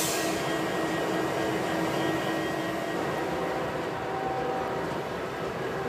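Ex-Southern Pacific GE diesel-electric locomotive running with a steady mechanical whir of its engine and cooling fans, a faint steady hum fading out about halfway through.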